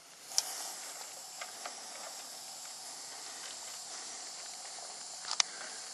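Smoke candle under a model plane burning with a steady hiss that comes up about half a second in, broken by a few sharp clicks, the loudest near the end.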